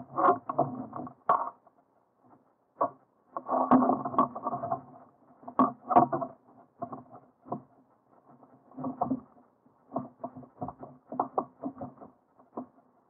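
Irregular knocks, taps and scuffling rattles, the sound of gear being handled on a kayak, in clusters with short gaps.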